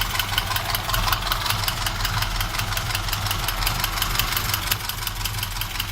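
Moskvich car engine idling with a sharp, even knock, about six to seven strokes a second: the engine knock that the owner is showing.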